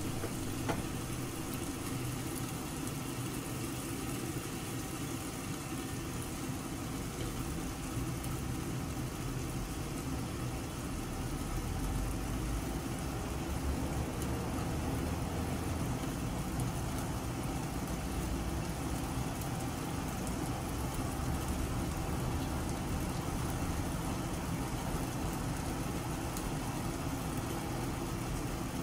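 Food cooking in a frying pan under a steamed-up glass lid on the stove, over a steady low hum with a faint hiss; it gets slightly louder about ten seconds in.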